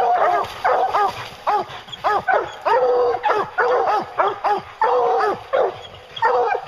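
A pack of English hounds barking at the tree, rapid overlapping barks from several dogs with hardly a break: treed barking, the sign that they have a black bear up the tree.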